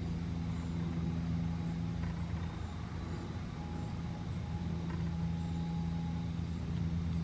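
Steady low mechanical hum, several low tones held constant, with a faint high whine above them.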